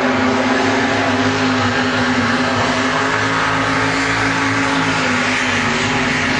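Racing swamp buggy engine running hard at high revs, a loud continuous drone holding a nearly steady pitch.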